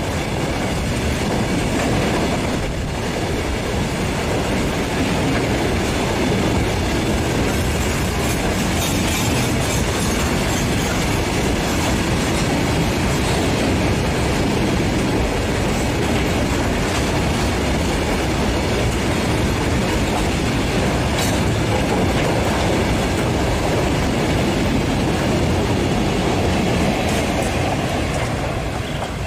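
Loaded roll-on roll-off freight train of flat wagons carrying lorries rolling past close by, its wheels and wagons clattering steadily. The sound eases off near the end as the brake van goes by.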